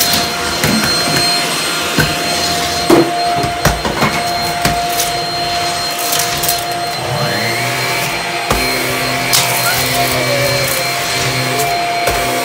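Bissell stick vacuum running over a hard laminate floor, a steady motor whine with scattered sharp crackles and clicks as grit is sucked up. About seven seconds in, a lower steady hum rises in and holds alongside it.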